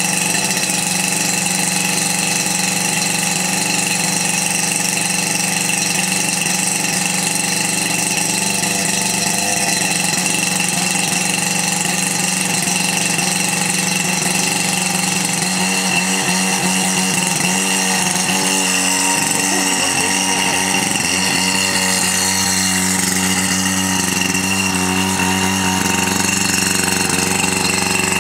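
Tohatsu V38CS portable fire pump's engine running steadily under load while pumping water, with the hiss of the water jet from the hose nozzle mixed in.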